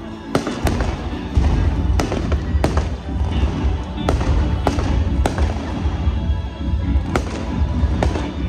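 Aerial firework shells bursting in an irregular string of about ten sharp bangs, over a deep continuous rumble and the show's music.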